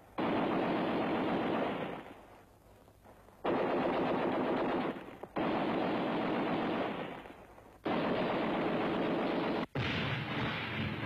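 Machine guns firing long bursts of automatic fire over troops in a live-fire training exercise: about five bursts, each lasting a second and a half to two seconds, starting and stopping abruptly with short pauses between them.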